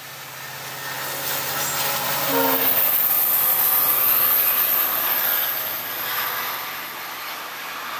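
WDP-4D diesel locomotive, with its EMD two-stroke engine running, passes at speed, followed by its passenger coaches rolling by. The sound builds to its loudest as the locomotive goes past, then settles into the steady rolling of the coaches' wheels on the rails. A short horn note sounds about two and a half seconds in.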